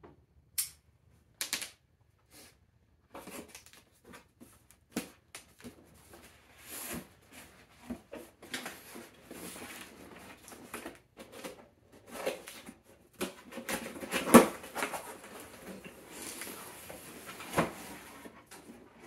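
Cardboard box being opened by hand: scraping and rustling of cardboard and packing, broken by short knocks and clicks, with the loudest knock about fourteen seconds in as the flaps are worked open.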